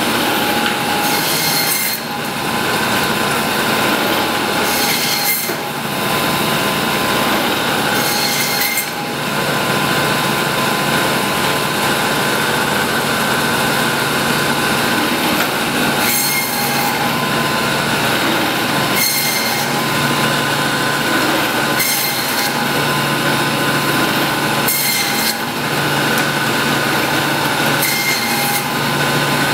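Butcher's meat band saw running steadily with a high blade whine, its sound shifting every few seconds as cuts pass through.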